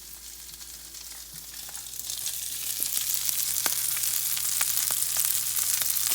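Cubed canned herring fillets sizzling in hot oil in a frying pan, the sizzle growing louder about two seconds in, with scattered short pops and clicks.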